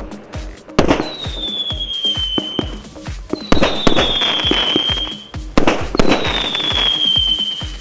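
Fireworks battery (НФ7026 «Поздравляю!») firing: three loud bangs about two and a half seconds apart, each followed by a whistle sliding slowly down in pitch for a second or so. Music with a steady beat plays underneath.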